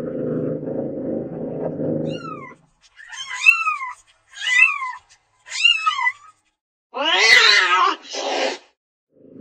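Domestic cat meowing. A low, steady rumble fills the first two seconds or so. Then come four short, high-pitched meows that rise and fall, followed near the end by a louder, longer, harsher meow and a brief one after it.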